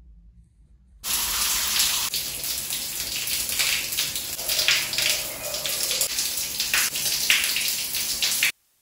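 Shower running, water spraying onto the tiled shower floor and walls as a steady, loud hiss. It starts abruptly about a second in and cuts off suddenly near the end.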